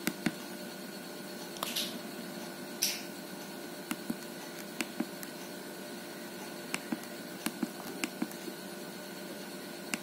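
Keys and navigation joystick of a Nokia 7610 mobile phone being pressed: about a dozen sharp, separate plastic clicks at uneven intervals over a faint steady hum, with two brief soft rustles about two and three seconds in.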